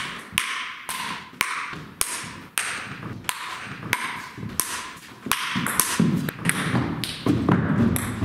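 Table tennis rally: a ping-pong ball clicking back and forth off paddles and the table at about two hits a second, each hit echoing briefly in a large hall.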